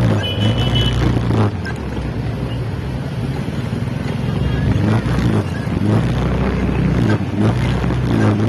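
Motorcycle engine running at low speed, a steady low hum, through slow street traffic, with a brief high beep near the start.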